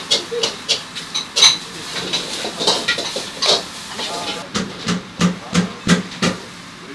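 Eatery clatter: sharp clicks and knocks of tableware and utensils over a steady hiss, with a run of about six evenly spaced knocks, some three a second, in the second half.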